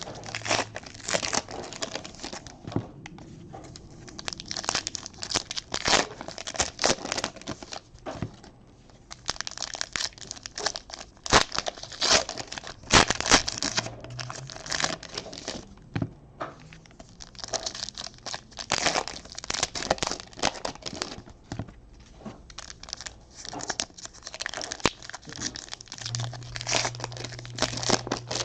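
2019 Panini Donruss baseball card pack wrappers being torn open and crinkled by hand, a run of irregular crackling and tearing that comes and goes in bunches with short lulls.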